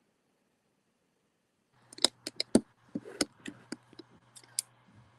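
Dead silence, then about a second and a half in a call participant's microphone opens with a low steady hum and a quick string of sharp clicks and taps, like handling near the mic.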